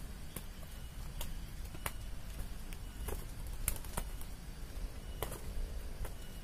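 Wing blows of two spotted doves fighting: scattered sharp slaps, a few a second at irregular intervals, over a low steady rumble.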